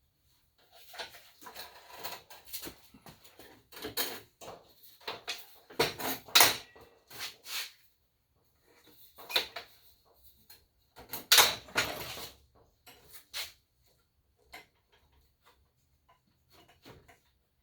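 Ridgid AC9960 miter saw stand being handled and adjusted: a string of clicks, knocks and rattles from its frame and fittings, in two busy spells with the loudest knocks about six and eleven and a half seconds in.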